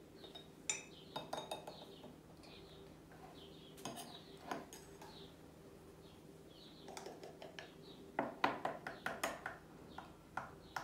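Metal measuring spoon clinking and scraping against a small can of baking powder and a mixing bowl, with scattered single clicks and a quick run of taps about eight seconds in.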